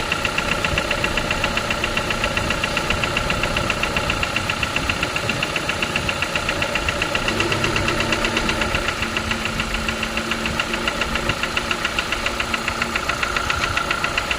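Renault Duster's F4R 2.0-litre four-cylinder petrol engine idling with a fast, regular knock in time with the engine. The owner suspects the hydraulic lifters, valves, cylinder scoring, the crankcase ventilation valve or the oil pump.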